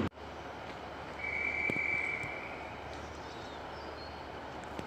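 Railway platform ambience: a steady low hum with a single steady high-pitched tone lasting about a second and a half, and a few faint bird chirps.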